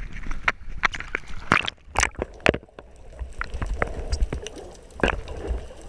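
Water splashing and sloshing around a GoPro at the sea surface, with sharp knocks of water against the housing. A little over halfway through, the camera goes under and the sound turns muffled and low, with a few faint clicks.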